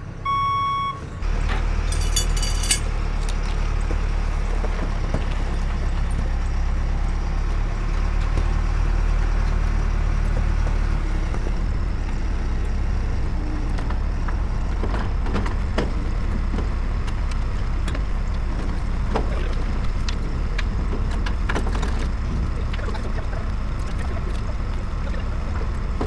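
A heavy vehicle's engine running steadily with a low rumble, with scattered clanks and knocks. It is preceded about a second in by a high beeping tone that cuts off.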